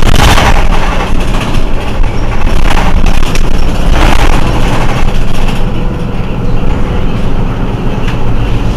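Mercedes-Benz Citaro C2 city bus engine idling at a standstill, a steady low hum, with a few short rushes of noise in the first half.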